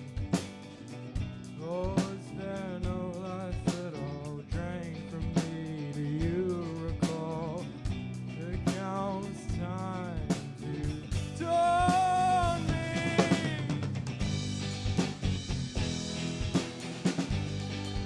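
A rock band playing its song live: a singer's voice over a drum kit and backing instruments. The singing stops about three-quarters of the way through, and the drums and instruments carry on.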